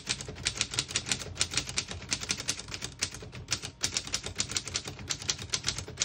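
1929 Corona Four portable typewriter being typed on: a fast run of keystrokes, the typebars snapping against the platen several times a second with brief gaps between words, each key striking cleanly without skipping or sticking.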